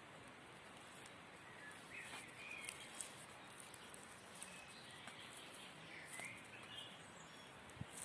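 Quiet woodland ambience with a few faint, short bird chirps scattered through it and light clicks.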